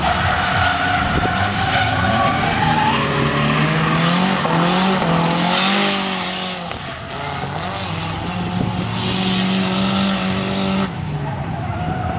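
Drift car's engine revving, its pitch rising and falling with the throttle, over the hiss and squeal of rear tyres sliding sideways in a smoking drift. The sound changes abruptly about a second before the end.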